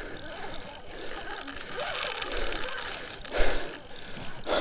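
Spinning reel worked during a fight with a big white sturgeon, its gears and drag clicking and whirring in uneven spells, loudest a little past the middle.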